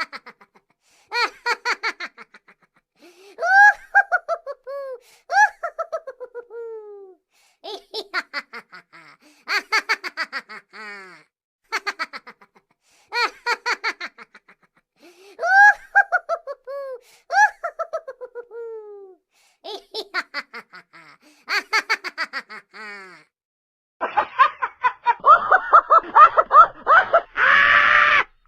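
Laughter sound effects: a string of breathy, falling laugh bursts in phrases, the same laugh seemingly played twice in a row. Near the end a denser, noisier burst of laughter cuts off sharply.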